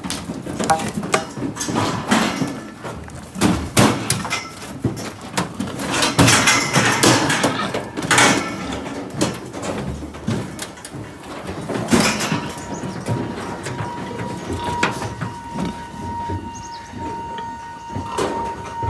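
Irregular clanks, knocks and rattles, as of metal being banged and shaken, with a steady high hum joining about twelve seconds in.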